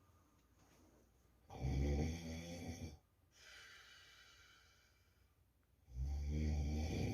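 A man snoring loudly. A snore comes about a second and a half in, a softer hissing breath follows, and a second snore starts near the end.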